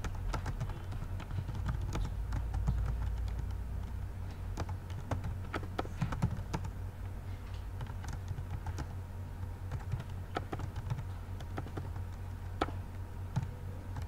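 Typing on a computer keyboard: irregular key clicks, over a steady low hum.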